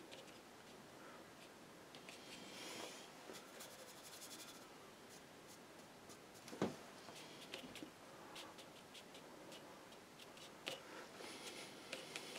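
Faint scratching and dabbing of a paintbrush on watercolour paper, with scattered small ticks and a single sharper knock about halfway through.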